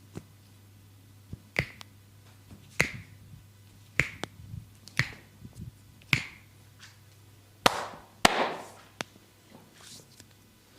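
Sharp hand slaps on skin during a massage, a steady run of snaps about a second apart, with the two loudest close together near the end.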